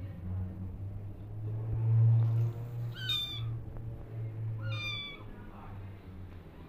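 Two short, high-pitched kitten mews about a second and a half apart, each sliding slightly down, over a low steady hum that is loudest about two seconds in.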